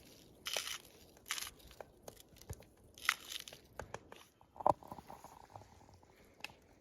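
Someone biting into and chewing crunchy grilled vegetables: a few short crunches with small clicks between them, and one sharper knock about two-thirds of the way through.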